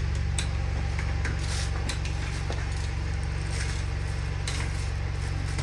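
Scattered light metallic clinks of a beadlock ring, bolts and washers being handled and fitted onto a side-by-side wheel, over a steady low hum.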